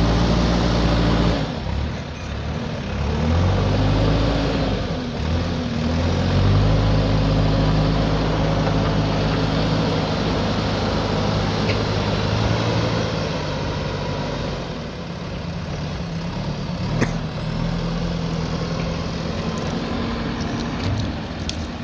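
JCB backhoe loader's diesel engine running under working load, its revs dropping and picking up again several times. One sharp knock comes about three-quarters of the way through.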